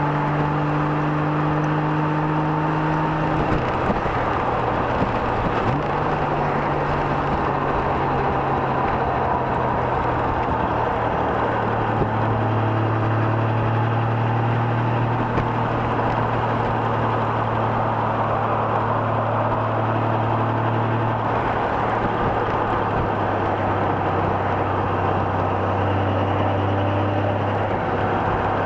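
Honda Gold Wing GL1500's flat-six engine running at road speed under heavy wind and road rush. Its steady pitch drops about three and a half seconds in, as with a shift up through the gears, and changes again partway through.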